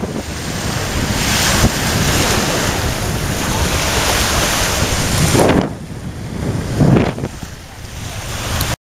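Wind rushing over the microphone on a small sailboat under sail, with water noise beneath it. It blows hard, eases a little past halfway, gusts again, then cuts off suddenly at the end.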